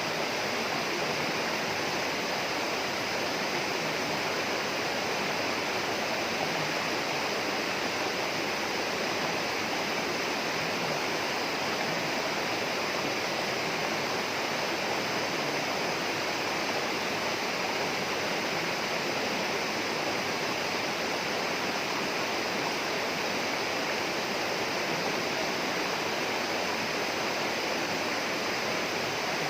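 Steady rush of flowing water, a stream or small waterfall in tropical rainforest, running evenly without a break.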